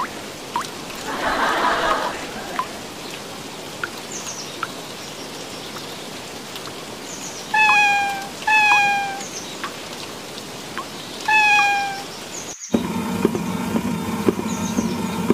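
A domestic cat meowing three times in the middle stretch, each meow short and falling in pitch. After a sudden cut near the end, a steady low hum with light clicks sets in.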